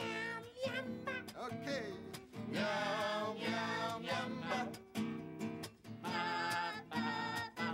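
A sung children's song over a strummed nylon-string classical guitar, the voices singing in phrases with short breaths between them.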